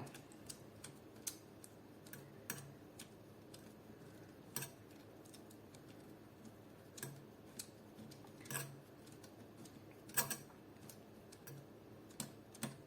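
Faint, irregular small clicks and taps of a screw being turned in by hand tool on an airsoft AK, a few sharper ticks standing out.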